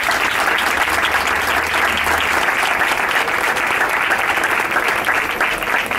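A small crowd applauding, many hands clapping at once.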